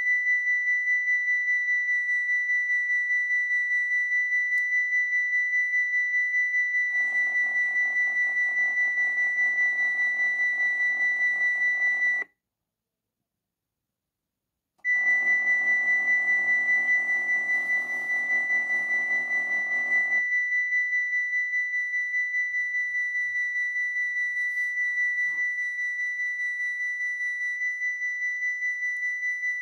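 Model Dutch level-crossing warning bells sounding as a steady high electronic ring with a fast, even pulse. A lower whirring from the barrier boom motors joins it twice for about five seconds each, as the booms rise and later fall. Between these, everything cuts off for about two and a half seconds and the ring then starts again.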